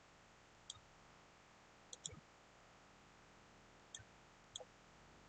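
Faint, scattered clicks of a computer mouse, about five over a few seconds, with two close together about two seconds in.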